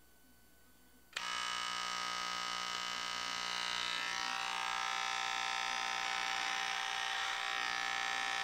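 Electric hair clippers switch on about a second in and buzz steadily. From about four seconds in the buzz turns rougher as the blade runs over the short hair on a man's head.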